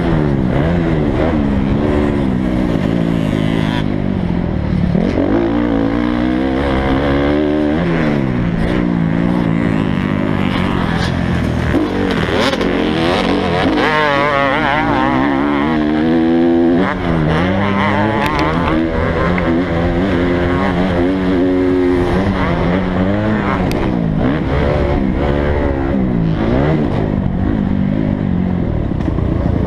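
Motocross dirt bike engine close to the on-board camera, revving hard and dropping off again and again, its pitch climbing and falling every few seconds as the rider accelerates through the gears and rolls off for jumps and turns.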